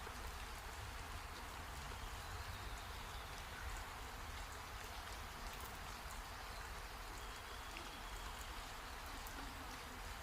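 Steady rain falling, an even hiss with many close drops pattering, over a low steady rumble.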